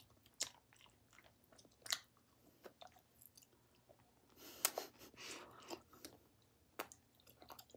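A mouth chewing Bubble Yum bubble gum: irregular wet smacks and clicks of lips and gum, the loudest cluster just under five seconds in.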